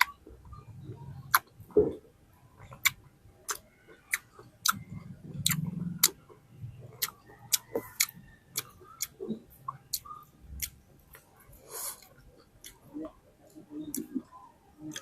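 Close-miked eating sounds of juicy fruit being chewed: irregular sharp wet mouth clicks and smacks, roughly one or two a second, with soft chewing in between.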